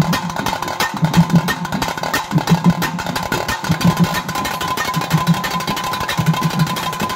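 Nagaswaram ensemble music: a thavil and other drums beat a steady rhythm under a long held nagaswaram note.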